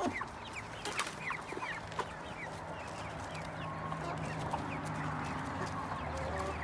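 Hens clucking while feeding on lettuce leaves, with many short, high, falling chirps in the first few seconds and a few sharp clicks.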